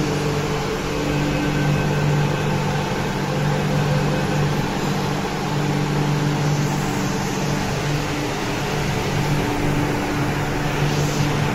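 MTR Q-train electric metro train pulling away from the platform: a steady low electrical hum over rolling and running noise.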